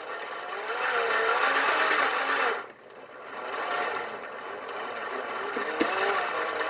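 Starter motor cranking the 1966 Dodge Dart's 225 slant six, jumpered at the starter, in two runs with a short break a little before the middle. The whine wavers as the engine turns over without starting; the owner thinks the starter is a little old.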